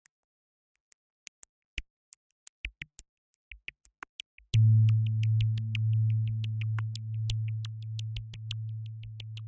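Electronic background music: sparse ticking clicks, then a low, steady synthesizer drone enters sharply about halfway through under a fast ticking beat.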